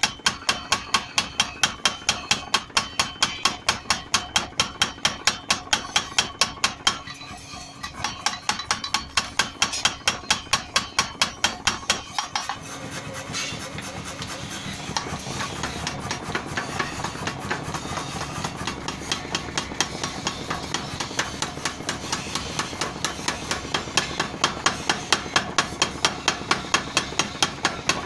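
Power hammer pounding red-hot steel held in tongs, rapid even blows about four a second. The blows stop briefly about seven seconds in and are much lighter through the middle stretch, then heavy again near the end.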